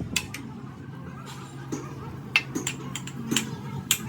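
Irregular light metal taps and clinks from work on excavator track chain parts, a dozen or so, over a steady low hum.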